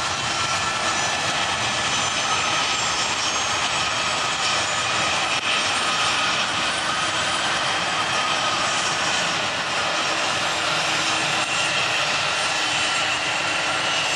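Airbus A320-200's twin jet engines at takeoff power during the takeoff roll: a steady, even roar with high whining tones over it, one of which rises slightly near the end.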